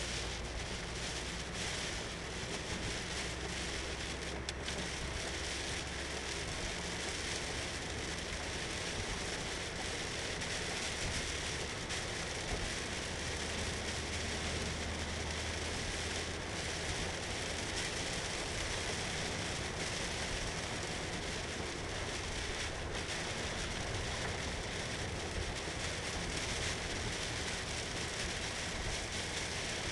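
Steady hiss of rain and wet tyres on the road, heard from inside a Toyota MR2 (AW11) cabin while driving, with a low engine drone underneath.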